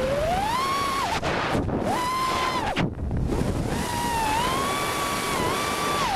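FPV quadcopter's Cobra 2204 2300KV motors and propellers whining, the pitch rising and falling with the throttle, over wind rushing on the onboard camera's microphone. The whine cuts out briefly twice, about a second and a half and three seconds in.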